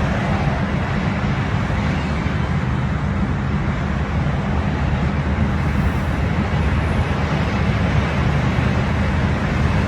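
An engine running steadily, a loud continuous rumble with no change in pitch.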